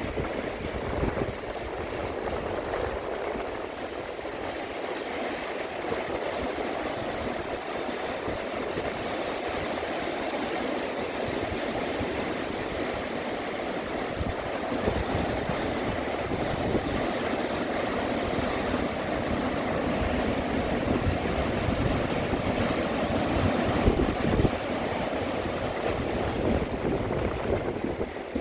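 Sea waves surging and washing continuously against a rocky shore, with gusts of wind rumbling on the microphone.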